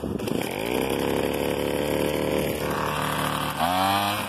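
Craftsman B2000 two-stroke gas leaf blower running, its engine pitch climbing in the first second, then revving up sharply about three and a half seconds in and holding at a higher speed.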